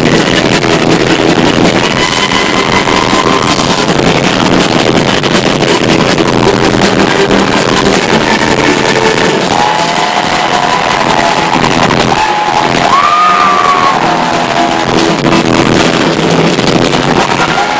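A symphonic metal band playing loud and live through the venue's sound system, heard from the front of the crowd. Guitars and drums run throughout, with held sung notes over them.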